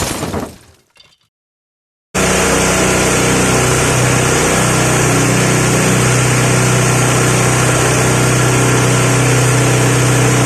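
Animal-feed grinding machine for corn and dried fish running at a steady speed: a loud, even whirr over a steady low hum, starting abruptly about two seconds in.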